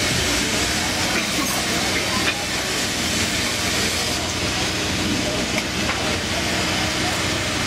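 Glassblowing bench torch burning with a steady hiss, with a small click about two seconds in.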